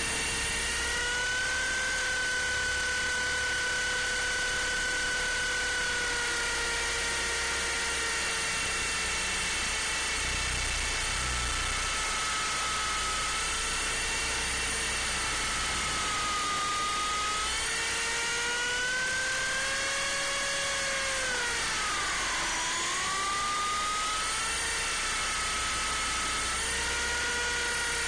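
MJX F45 RC helicopter's motor and rotor whining, heard from its on-board camera over a steady hiss. The whine's pitch slides up and down, with a sharp dip and recovery about two-thirds of the way through.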